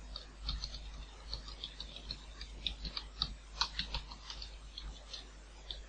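Typing on a computer keyboard: a quick, uneven run of key clicks.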